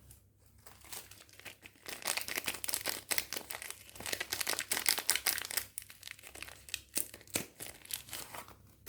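Soap packaging being crinkled and torn open while a bar of soap is unwrapped: a dense, irregular crackling that builds up in the first couple of seconds, is loudest in the middle and thins out toward the end.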